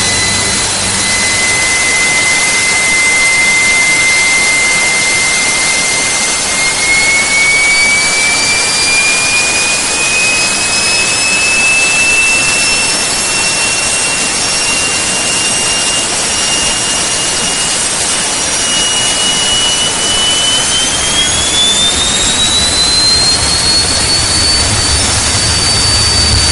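TEI turboshaft gas turbine engine on a test stand being started and spooling up, a steady roar under a whine that climbs in pitch with engine speed. The whine rises slowly at first, then more steeply about three-quarters of the way through before levelling off, as the engine lights off and accelerates to about 25,000 rpm. A low rumble builds near the end.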